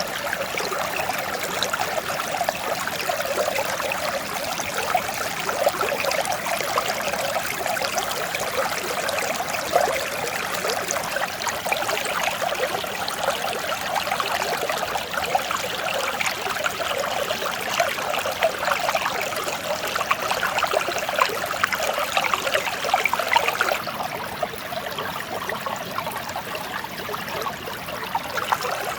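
Mountain stream flowing steadily, an even rush of water. It turns slightly softer and duller for the last few seconds.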